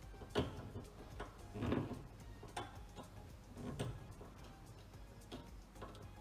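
Irregular sharp clicks and small knocks, about one a second, as a hose clamp is tightened around an LPG gas hose on a gas hob's inlet pipe.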